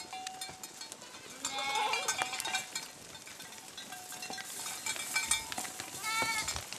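A herd of goats bleating as it moves through dry brush, two calls standing out about a second and a half in and again near the end. Many short clicks and crackles of hooves and twigs run under them.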